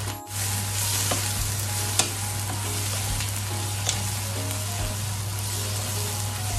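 Vegetables with tomato paste sizzling as they fry in a nonstick wok, stirred with a wooden spatula. A few sharp clicks of the spatula against the pan stand out over the steady hiss.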